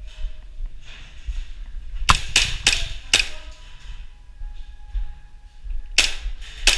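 Airsoft guns firing single shots: four sharp snaps in quick succession about two seconds in, then two more near the end.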